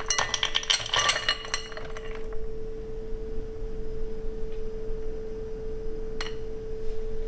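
Frozen fruit pieces pouring and clattering into a ceramic bowl on a kitchen scale for about two seconds, over a steady single-pitched hum. One sharp click about six seconds in.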